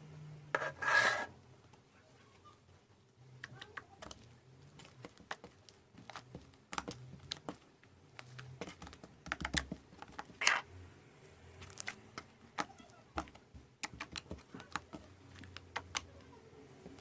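Fluffy slime being handled and worked, making irregular small clicks and pops, with a louder crackling rustle about a second in.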